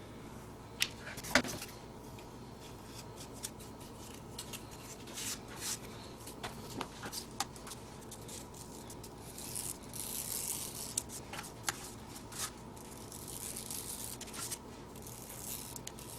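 Hand crafting sounds of a cardboard-and-fabric filter being put together: scattered sharp taps and clicks of cardboard and tools being handled, with two longer rasping stretches about ten and fourteen seconds in, like cutting or rubbing the material.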